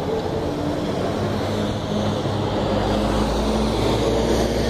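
Low, steady rumble of display jets flying overhead, growing a little louder and deeper about halfway through.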